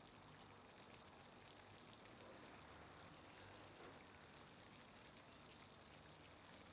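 Near silence: a faint, steady hiss of room tone with a low hum.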